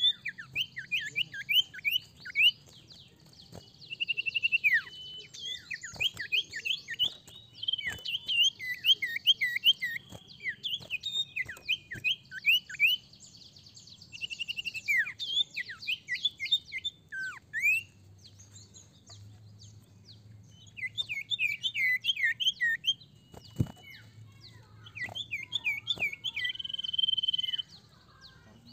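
Common iora (sirtu, or cipoh) singing vigorously: bursts of rapid, short downward-sliding chirps, mixed with a few held whistled notes, and a pause of a few seconds past the middle. A few faint ticks, which fit the bird hopping on the cage perch.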